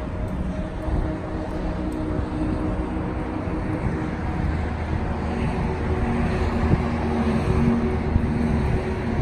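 Steady road traffic on a city avenue, a low rumble that grows slightly louder toward the end.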